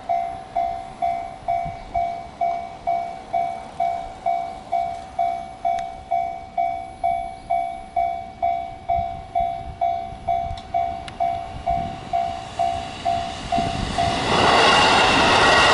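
Japanese level-crossing warning bell ringing in even dings, about two a second. About fourteen seconds in, a train arrives and its loud passing noise swamps the bell.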